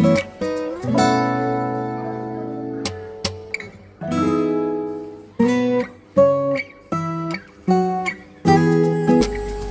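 Background music: acoustic guitar picking single notes and strummed chords, each note ringing and fading.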